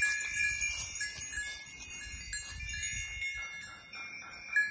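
Small bells on a grazing goat herd ringing and clinking irregularly, several overlapping tones struck again and again as the goats move and feed.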